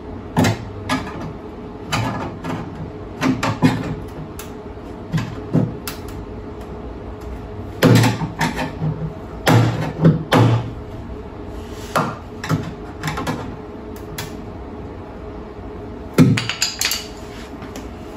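Parkside wire welder stitch-welding the sheet-steel sill of a car: a string of short bursts of arc, each under a second, with pauses between, the last one near the end.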